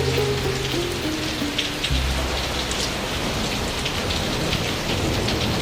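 Soft music with sustained low notes ending about two seconds in, over a steady dense hiss scattered with sharp crackling ticks.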